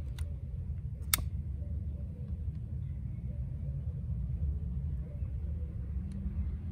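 Low steady rumble of wind on the microphone while a butane utility lighter's flame is held to a coconut charcoal briquette, with a sharp click about a second in.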